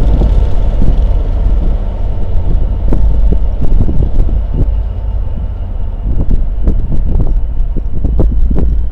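Class 67 diesel-hauled test train running by: a loud low rumble with irregular clicks and knocks from the wheels on the rails, and wind buffeting the microphone.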